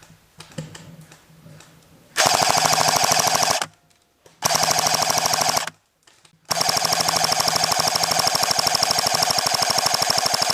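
Airsoft electric machine gun, an A&K MK46/M249 SAW replica, firing full-auto in rapid, evenly spaced shots: three bursts, two of about a second and a half each, then a long one.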